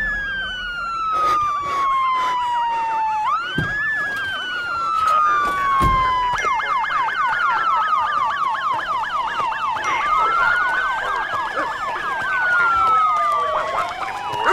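Police car siren wailing in long sweeps that jump up quickly and fall slowly, switching to a fast yelp for a few seconds in the middle, then back to the wail.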